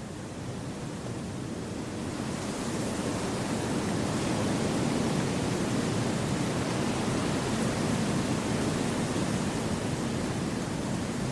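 Wind blowing through forest trees: a steady rushing noise that swells over the first few seconds and then holds.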